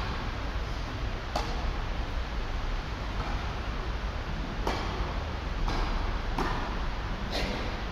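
Tennis balls struck by rackets in a doubles rally: about six sharp pops at uneven intervals, several close together in the second half. A steady rush of background noise runs underneath.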